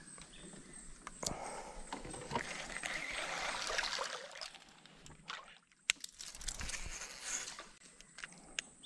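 Water splashing and sloshing beside a small boat on a creek, strongest in the first half, followed by a few sharp knocks.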